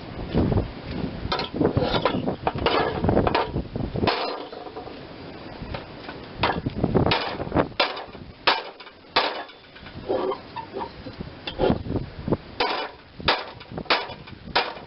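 Hammer blows on the sheet-steel mower deck, about twenty irregularly spaced metallic strikes, bending a deformed piece of the deck back out so the blade no longer strikes it.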